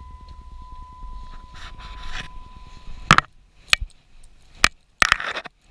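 A low steady rumble inside a vehicle with a thin steady tone above it, both dropping away about three seconds in. Then come four or five sharp knocks and clunks, with quiet gaps between them, as the camera is moved about.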